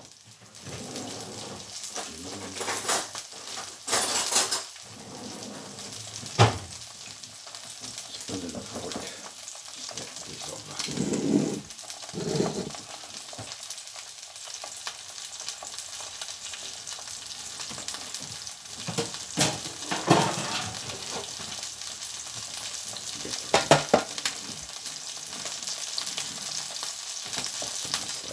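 Smoked haddock fillet frying in olive oil with garlic, chilli and parsley: a steady sizzle from the pan, with occasional clatters and knocks of kitchen utensils and crockery.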